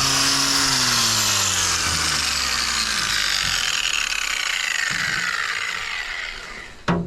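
An electric power tool's motor spinning down after being switched off. Its pitch falls steadily as it coasts to a stop over several seconds, and a sharp click comes near the end.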